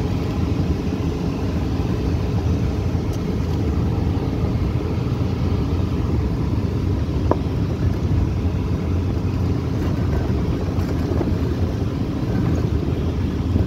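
A vehicle driving along a dirt track, heard from inside the cabin: a steady low rumble of engine and road noise.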